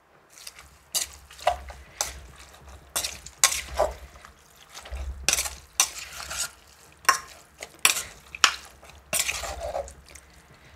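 Bamboo-shoot salad being stirred and tossed after the last herbs and toasted rice go in: irregular scrapes and clinks of a utensil against the bowl, with wet rustling of the mixed food.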